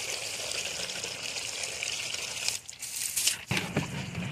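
Water running steadily for about two and a half seconds, then irregular splashing and sloshing as raw sheephead fillets are rinsed by hand in a steel pan of water.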